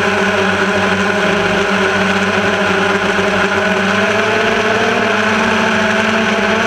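Multirotor drone's electric motors and propellers running with a steady, loud whine, as heard from the camera on board the drone in flight.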